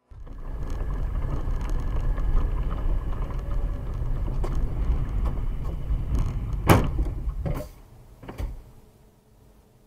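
Car cabin noise while driving on a slushy road: a steady low rumble from the engine and tyres. About two-thirds of the way through comes one sharp bang, then two smaller knocks, after which the running noise drops away to a low murmur.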